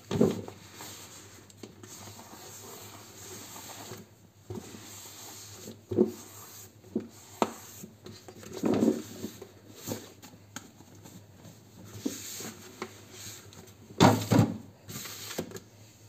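Plastic food containers and their lids being wiped and handled, with scattered knocks and clatters as they are set on a glass fridge shelf; the loudest clatter comes about fourteen seconds in.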